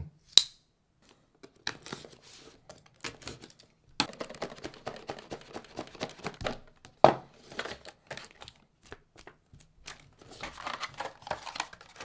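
Packaging of a KooGeek smart light socket being opened by hand: rustling, crinkling and tearing with scattered clicks. A sharp snap comes about seven seconds in, as the tightly fitted device is worked loose.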